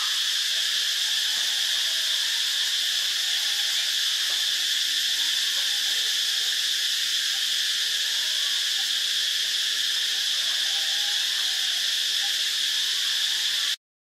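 A steady, high-pitched insect chorus, even and unbroken, with faint short whistled bird calls every few seconds; it cuts off abruptly near the end.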